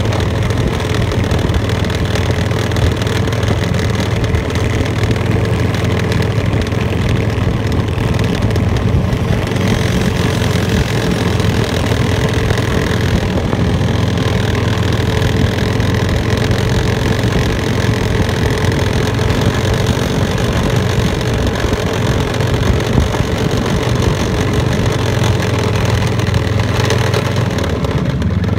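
Snowmobile engine running steadily while riding, heard from on board.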